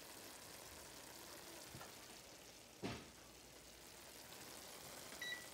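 Ground beef with mushrooms and onions sizzling faintly in a cast-iron skillet, with one sharp knock about three seconds in.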